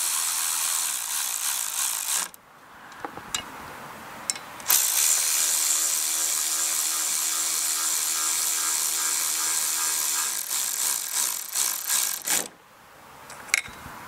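Cordless electric ratchet running head bolts down on a small Briggs & Stratton engine's cylinder head. The motor whines for about two seconds, pauses while a few clicks are heard, then runs again for about eight seconds, going choppy near the end before it stops.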